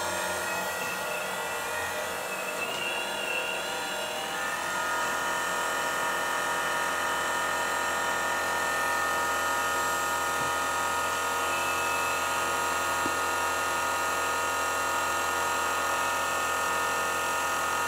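1/12-scale RC hydraulic excavator's pump and electric motor whining as the boom, arm and bucket are worked at speed. The whine shifts for the first four seconds or so, then settles into a steady, slightly louder drone.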